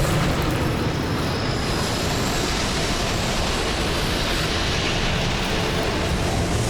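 A giant felled rainforest tree falling and crashing through smaller trees: a loud, dense rushing noise that holds steady for several seconds.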